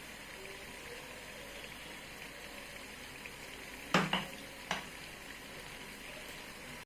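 Roasted-gram and rice-flour murukku dough frying in hot oil in a kadai, a steady sizzle, with two short knocks, about four seconds in and just under a second later.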